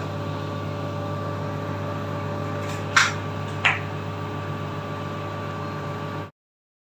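Steady electric hum of a Panasonic NU-SC100W steam convection oven running, low with a faint higher tone. Two sharp clicks come about three seconds in, and the sound cuts off suddenly near the end.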